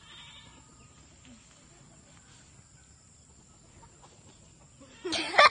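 Chicken squawking loudly in a short run of calls, starting about five seconds in after several seconds of quiet.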